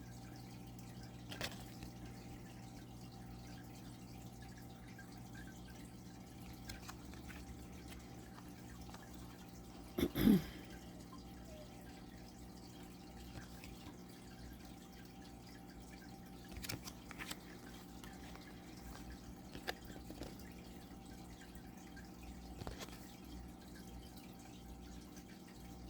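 Thick pocket-size oracle cards being handled and laid down one at a time, making faint sparse clicks and taps a few seconds apart over a steady low hum. A louder knock comes about ten seconds in.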